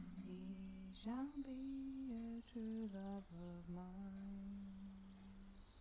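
A person humming a slow, quiet tune, holding low notes and stepping between them, with one short rising slide about a second in; the humming stops shortly before the end.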